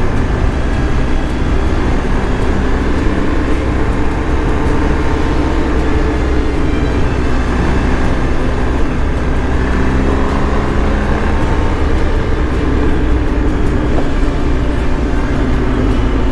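BMW R 1250 GS Adventure's boxer-twin engine running at a steady cruise, its pitch wavering slightly, with wind noise.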